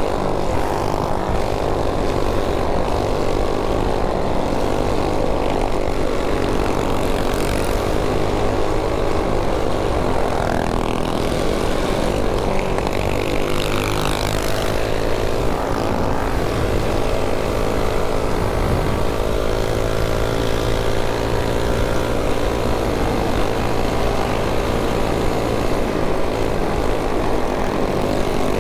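Several mini bike engines running steadily while riding, a continuous drone whose pitch drifts slowly up and down with the throttle.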